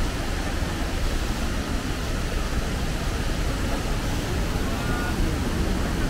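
Steady rushing roar of Shifen Waterfall, a broad ledge waterfall pouring into a deep pool.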